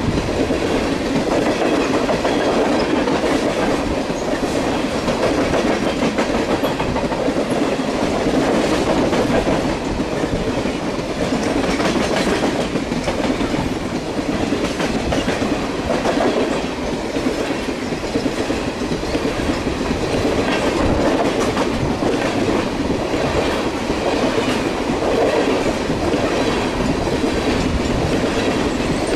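Union Pacific freight train's tank cars rolling past at close range: a steady loud rumble of wheels on rail, with an irregular clickety-clack of wheels over rail joints.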